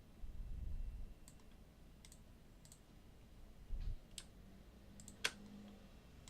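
Computer mouse clicking: a scattering of single short clicks, one clearly louder about five seconds in, with a couple of low muffled thumps near the start and about four seconds in.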